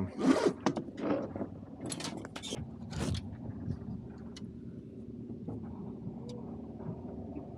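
A boat motor running steadily at low speed, with a few sharp clicks and rustles of handling in the first few seconds.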